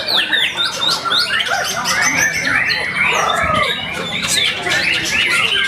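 Several white-rumped shamas (murai batu) singing at once: a dense, continuous tangle of fast overlapping whistles, trills and chirps with sharp clicks mixed in.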